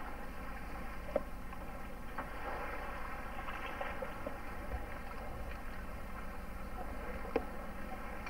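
A four-wheel-drive towing a boat trailer driving past, a steady low road-and-engine rumble mixed with wind on the camcorder microphone. Two short clicks, about a second in and near the end.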